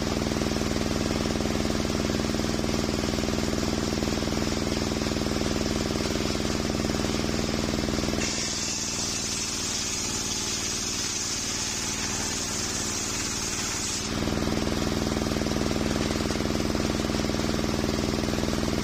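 Large circular saw blade of a homemade table sawmill running steadily with its drive humming. From about eight to fourteen seconds in it cuts along a coconut-wood board, a high hiss over a lower hum, then goes back to spinning free.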